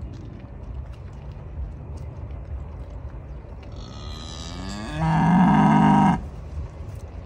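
A Brown Swiss cow mooing once: a long call that rises in pitch, then holds loud and steady for about a second before stopping abruptly.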